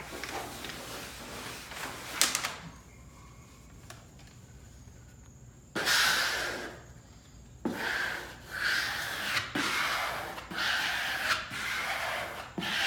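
Rustling and crinkling of a large vinyl wallpaper panel being handled and hung: a sharp clatter about two seconds in, a quiet stretch, then a loud rustle about six seconds in, followed by more rustling.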